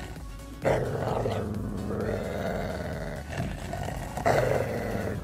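A Jack Russell × Fox Terrier dog growling in rough play, with two louder outbursts about two-thirds of a second in and about four seconds in, over background music.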